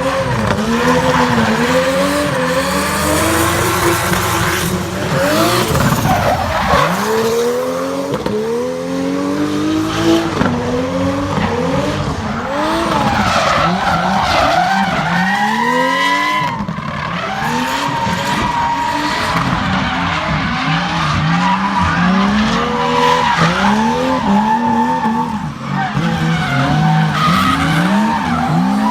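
A turbocharged Toyota 2JZ straight-six in a BMW E36 drift car, fitted with an anti-lag system, revving up and falling back over and over as the throttle is worked through a drift, with tyres screeching.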